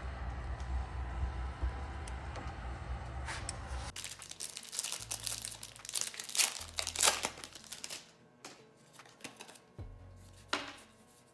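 Foil wrapper of a Crown Zenith Pokémon booster pack crinkling and tearing as it is opened. A dense run of crackling starts about four seconds in, and there is one more sharp crackle near the end.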